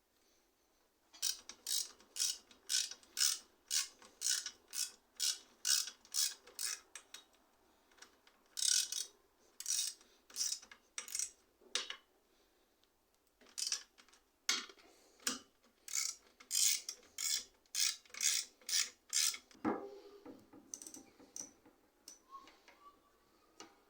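Quick, repeated strokes of a hand tool on the bike, each with a ratcheting rasp, about two or three a second, in three runs with short pauses between; a duller knock near the end.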